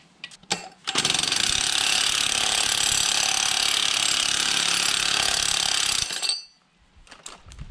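Impact wrench hammering through a long socket extension for about five seconds, then cutting off suddenly, as it breaks loose threadlocked bolts inside a manual transmission's bellhousing. A few light clicks of the socket seating come just before it starts.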